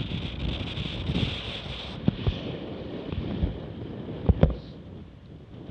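Water rushing and splashing along the hull of a Laser Radial sailing dinghy under way, with wind buffeting the microphone. A few sharp slaps of water sound about two seconds in, and the loudest pair comes close together a little over four seconds in.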